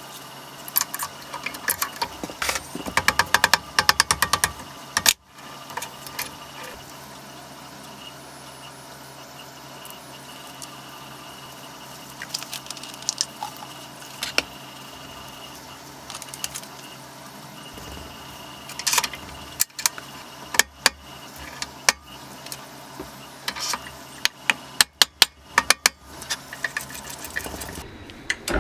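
Irregular light metallic clicks and clinks of drill press parts being handled: the Morse taper arbor and chuck being fitted to the spindle. They come in two bunches, early on and again in the last third, over a faint steady hum.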